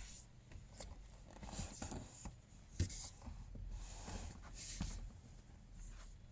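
Faint handling noises: light clicks, taps and rustles of a small plastic USB dongle and its packaging being turned over in the hands, with a sharper knock a little under 3 s in and another a little under 5 s in.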